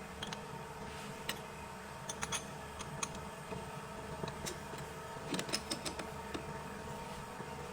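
A few light, scattered clicks and taps of a metal tool being handled and set in place on a piston, over a steady faint hum.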